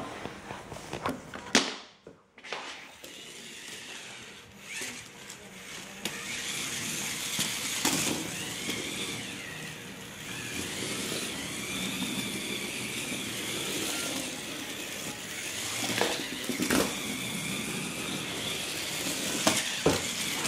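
Small DC motors and gearbox of a Tamiya tracked robot chassis whining as it drives, the pitch wavering up and down as it speeds up and turns. The whine grows steadier and louder from about six seconds in, with a few sharp clicks and knocks along the way.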